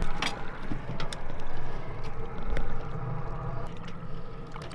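A boat's outboard motor running low and steady, with several small sharp knocks and clicks of gear being handled on the boat.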